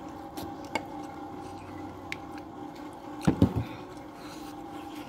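Close-up chewing and mouth sounds of a man eating rice noodles: soft wet clicks, with two louder mouth sounds in quick succession about three seconds in, over a steady low hum.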